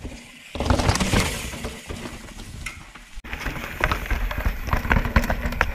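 Mountain bike riding down a rock staircase: tyres thudding and scrabbling over stone, with the bike rattling and knocking. About three seconds in it jumps to a closer, busier clatter of many sharp clicks and knocks.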